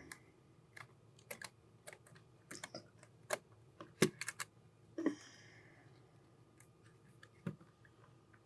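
Irregular light clicks and taps of small hand tools and parts while a compact camera is worked on by hand, the loudest about four seconds in.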